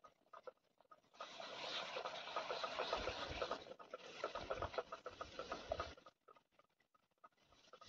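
White sauce crackling in a hot pan on a portable gas stove as milk is poured in and stirred with a metal spoon, a dense patter of small ticks. It starts about a second in and dies down about six seconds in.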